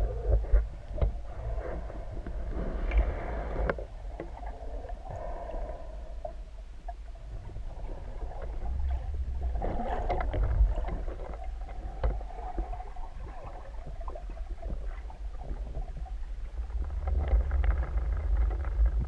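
Muffled underwater noise heard through a speargun-mounted camera: a low rumble of moving water with scattered clicks and knocks, swelling now and then as the diver swims.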